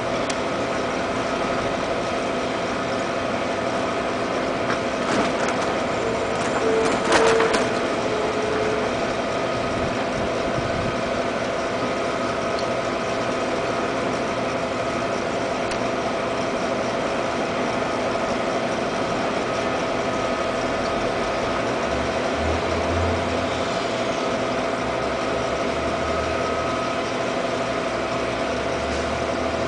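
Steady mechanical hum: several steady tones over an even hiss, with a few faint clicks about five to seven seconds in.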